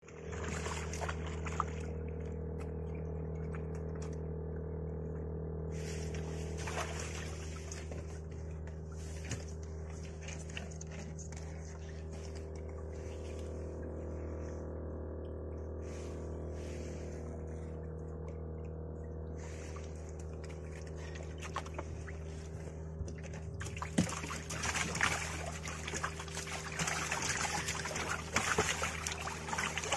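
Steady low motor hum with water trickling and splashing as the longline is handled at the boat's side. In the last several seconds, irregular clatter and knocks from handling the line and gear on the wooden deck are added.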